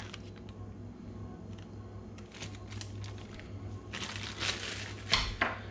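Plastic packaging rustling and crinkling, with a few light clicks, as parts of a router sign-making jig kit are taken out of the box. A steady low hum runs underneath.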